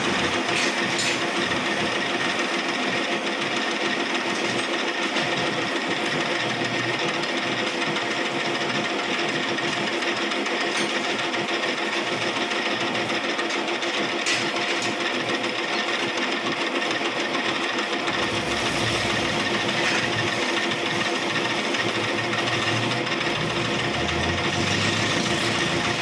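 Metal lathe running steadily during machining, a continuous mechanical whirr and clatter with a deeper rumble joining in about two-thirds of the way through.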